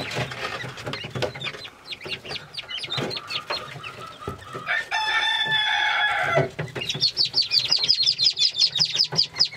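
Newly hatched chukar partridge chicks peeping, the peeps coming fast, about six a second, in the last few seconds. About halfway through, a rooster crows once for about a second and a half.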